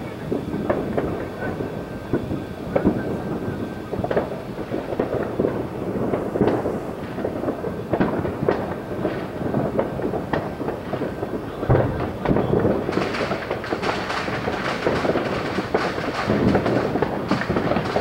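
Distant Fourth of July fireworks going off, a near-continuous crackle of overlapping pops and bangs. There is a deeper boom about twelve seconds in, and the popping grows denser and sharper in the last few seconds.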